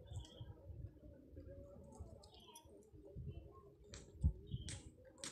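Faint scattered clicks and small crackling noises as a rhesus macaque bites and gnaws at the rind of a citrus fruit held to its mouth, with one dull thump about four seconds in.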